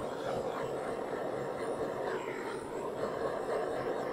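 Handheld gas torch burning with a steady rushing hiss as its flame is played over a lacquered metal cap.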